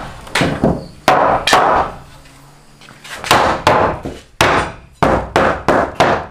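Hammer driving nails into a wooden batten on plank boards: about a dozen sharp blows, a run of four, a pause of about a second, then a faster run of eight.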